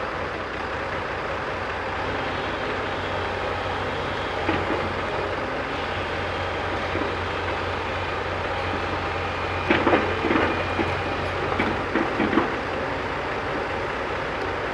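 Diesel engine of a JCB backhoe loader running steadily, with a knock about four seconds in and bursts of clanking and rattling around ten seconds and again about two seconds later.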